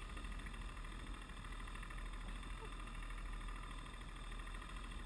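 Outboard motor idling steadily: a constant low rumble with a fixed hum above it.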